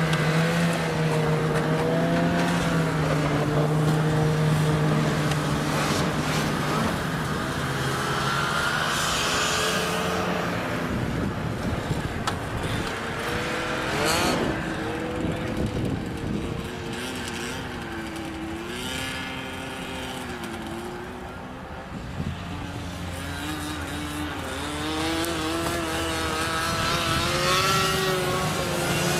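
Snowmobiles passing one after another in a steady line, several engines at once rising and falling in pitch as each goes by. The sound thins out past the middle and builds again near the end as more sleds come through.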